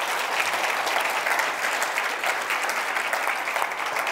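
Audience applauding: many people clapping together at a steady level.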